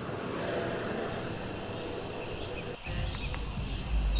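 Crickets chirping steadily, short high chirps about three a second, over a steady hiss. About three seconds in, the background changes and a low rumble joins the chirping.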